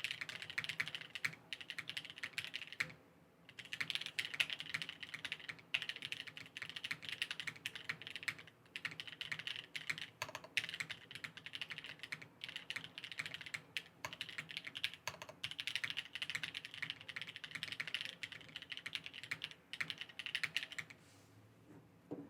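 Steady typing on a custom mechanical keyboard: a plateless, O-ring-mounted board with lubed NovelKeys Cream linear switches (RNDkbd "whipped") and GMK Greg keycaps. Rapid keystrokes run in runs broken by brief pauses, and the typing stops about a second before the end.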